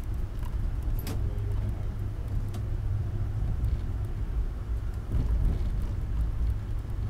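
Train rumbling low and steady, with a sharp click about a second in.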